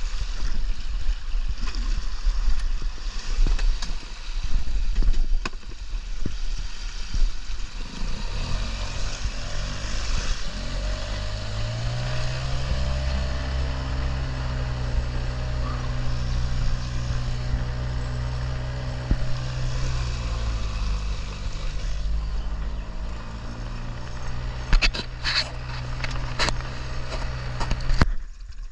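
Boat outboard motor running with a steady low rumble. The engine pitch rises about eight seconds in, holds steady, then drops back about twenty seconds in. A few sharp knocks come near the end.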